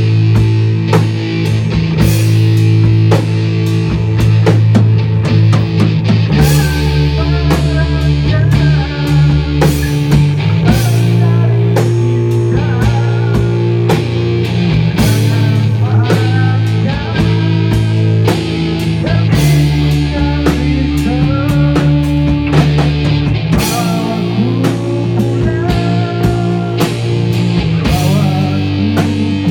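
A rock band playing live and loud: electric bass, drum kit with repeated cymbal crashes, and electric guitar.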